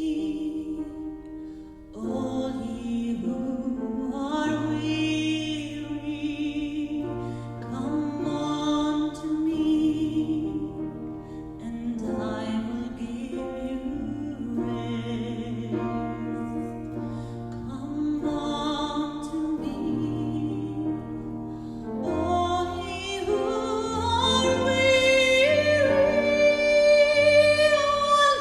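Gospel choir singing a song with instrumental accompaniment and a steady bass line, swelling louder and higher toward the end.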